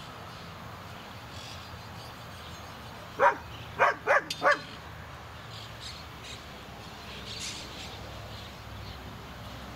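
Dog barking four times in quick succession about three seconds in.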